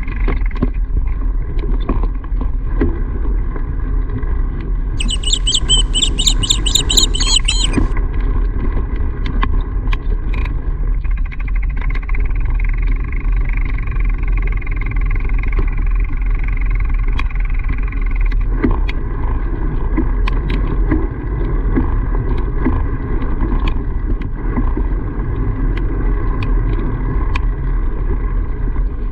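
Steady low rumble of wind and riding noise on the microphone during a bike ride, with faint scattered clicks. About five seconds in, a high warbling, ringing tone sounds for about three seconds.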